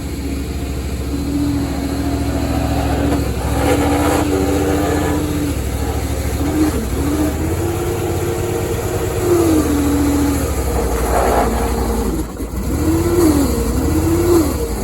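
Homemade skid steer's engine running steadily under a whining tone. The whine holds steady at first, then dips and rises in pitch several times as the machine is worked.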